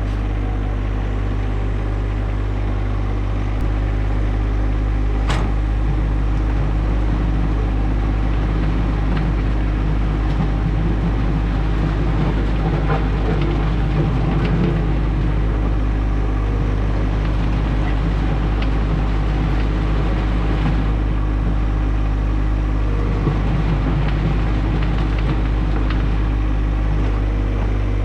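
John Deere 1025R subcompact tractor's three-cylinder diesel engine running steadily.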